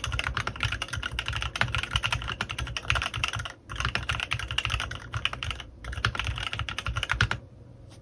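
Fast typing on a CannonKeys Rekt1800 mechanical keyboard with stock Kailh x Swagkeys Lavender prototype switches and PBTfans PBT keycaps: a rapid stream of keystrokes with two short pauses, about three and a half and six seconds in, stopping near the end.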